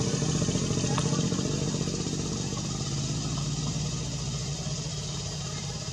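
An engine running steadily off-screen: a low hum with a fast, even pulse.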